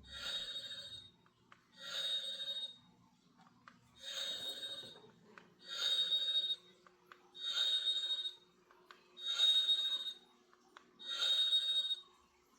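Toy knife's built-in electronic sound effect, triggered seven times in a row: a tinny, ringing burst about a second long from its small speaker, repeating roughly every two seconds.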